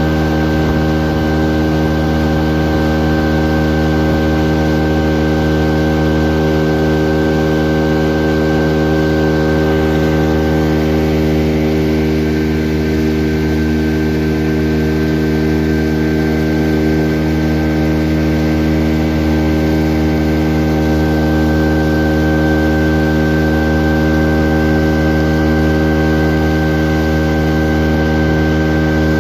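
Small boat's motor running at a steady speed, its hum holding one unchanging pitch throughout.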